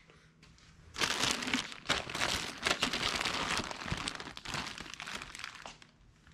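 Plastic packaging bag crinkling and crackling as it is handled, starting about a second in and going on for about five seconds.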